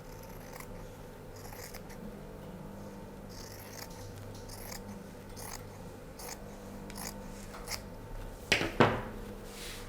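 Scissors cutting through pattern paper in a run of short snips, with two loud sharp clicks near the end.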